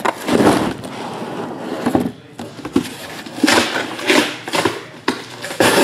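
Cardboard trading-card boxes being slid and handled: a run of irregular scrapes, rustles and a few light knocks.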